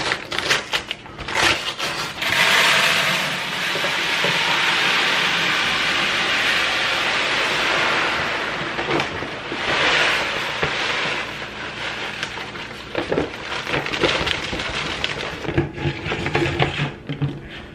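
Paper rice bag crinkling, then rice pouring into a plastic bucket in a steady hiss lasting about seven seconds, with a shorter second pour. Near the end come clicks and rattles of the plastic bucket lid being fitted and turned.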